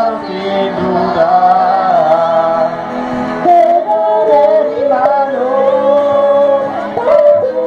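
Mixed choir of men's and women's voices singing, with long held notes.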